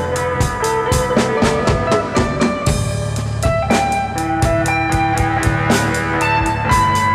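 Background music with a steady drum-kit beat, about four hits a second, under held melody notes.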